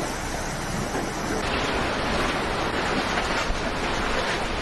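Storm wind and heavy rain: a steady rushing noise, with a change in its tone about a second and a half in.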